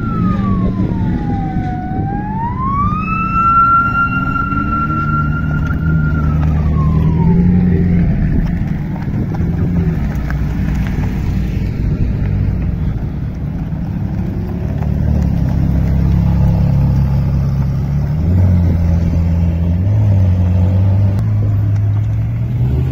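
Supercar engines, a McLaren and then a Ferrari 458 Speciale, running at low revs as they drive slowly past. Near the start a high whine dips, rises, holds for a few seconds and then falls away by about eight seconds in.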